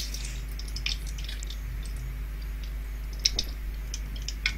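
Whole spices (cinnamon, cloves, star anise) frying in hot oil in a kadai: a scatter of small crackles and sizzles, with a couple of sharper pops in the second half.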